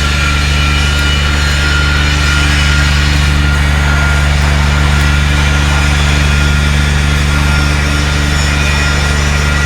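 Welding machine humming steadily with a strong low mains buzz, over an even hiss.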